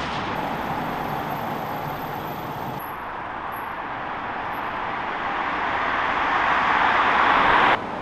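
Street traffic noise from passing cars. The sound grows louder over the last few seconds as a vehicle comes close, then cuts off abruptly near the end.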